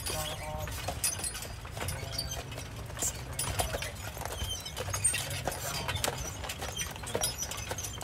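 Hooves of a pair of draft horses clip-clopping at a walk on a dirt and gravel path, over the steady rumble of the carriage wheels and the rattle of harness and chains.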